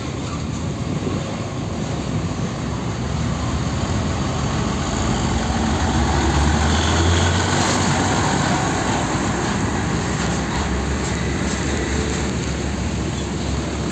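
A Nissan Diesel cab-over tractor-trailer with a container trailer drives slowly past close by, its diesel engine running and tyres rolling on the road. It is loudest about six to eight seconds in as the cab goes by, then eases off as the trailer follows.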